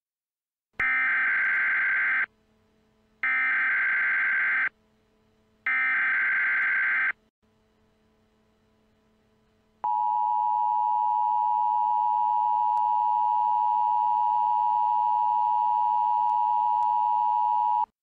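Emergency Alert System SAME header: three short, identical buzzing data bursts. A few seconds later comes the steady two-tone EAS attention signal, held for about eight seconds and then cut off. Together they mark the start of an emergency alert message.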